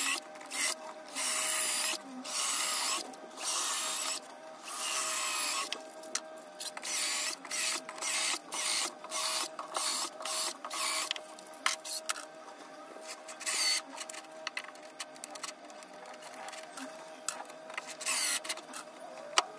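Cordless drill-driver running in short repeated bursts, boring a row of holes into a hardwood board and then driving screws into them.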